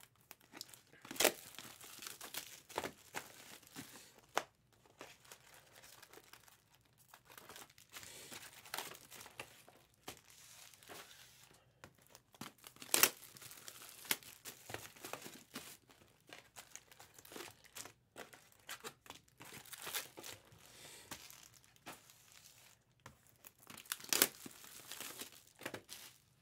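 Foil trading-card pack wrappers of 2023 Topps Chrome Cosmic crinkling and tearing as packs are ripped open and the cards handled. A few sharp louder clicks come through, about a second in, near the middle and near the end.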